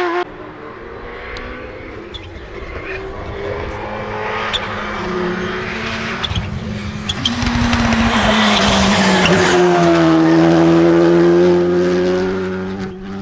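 A rally car on a special stage approaching and passing at speed, its engine note building to the loudest point about two-thirds of the way through with tyre noise, with a few sharp clicks along the way.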